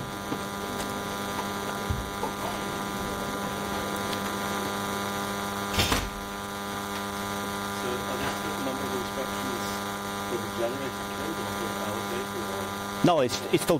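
Steady electrical mains hum with many evenly spaced overtones, with a single knock about six seconds in.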